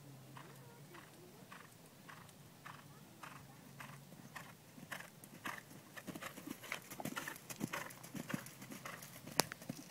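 Hoofbeats of a ridden horse moving over a dirt arena, a steady rhythm of about two strikes a second that grows louder as the horse comes past close by. One sharp click stands out near the end.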